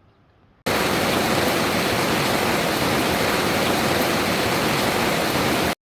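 Loud, steady rush of water in torrential rain, starting abruptly about half a second in and cutting off suddenly near the end.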